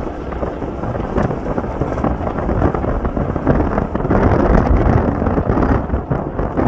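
Strong wind buffeting the microphone, a loud rushing noise with a heavy low rumble, growing louder about four seconds in.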